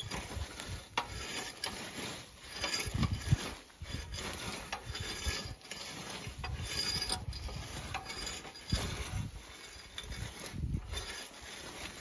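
Hand-pushed cycle weeder's flat spring-steel blade scraping and grating through dry, gravelly soil as it cuts out weeds, in uneven surges with each push.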